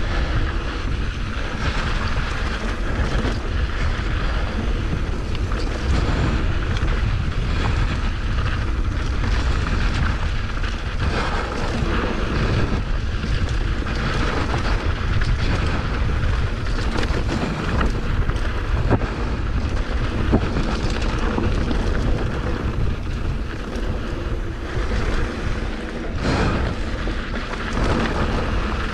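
Wind buffeting the microphone of a bike-mounted action camera as a mountain bike descends a rocky dirt trail at speed, with the rumble of tyres on loose dirt and stones. A few sharp knocks and rattles from the bike over rocks.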